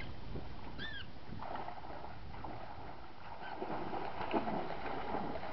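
A dog's rubber squeaky toy gives one short squeak about a second in, then a steady sloshing of water as the dog swims.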